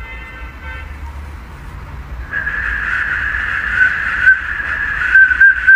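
Plastic pea whistle blown by a golden retriever's breath: one high steady whistle from about two seconds in, turning into a fast trilling warble near the end. A short buzzy toot sounds at the very start.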